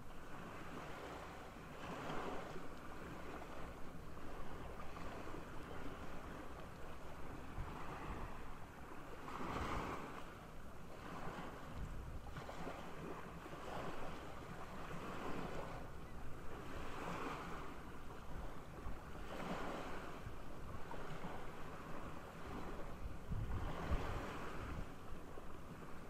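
Small waves washing against the shore, swelling every two or three seconds, with wind noise on the microphone.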